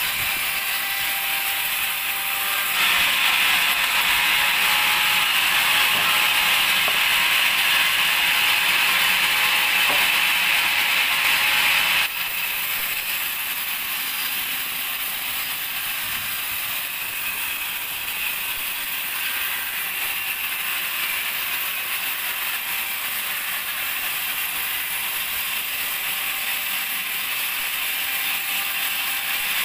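Band sawmill running, its blade sawing through a teak log with a steady high-pitched rasping hiss. It grows louder about three seconds in, then drops suddenly a little before halfway to a lower steady run.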